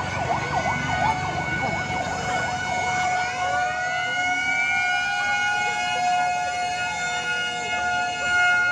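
A siren sounding over street noise. Its pitch wavers up and down for the first few seconds, then rises about three seconds in and holds one steady tone.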